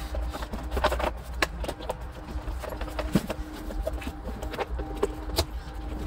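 Scattered clicks, knocks and rustling of hands and clothing working close to the microphone, over a steady low rumble.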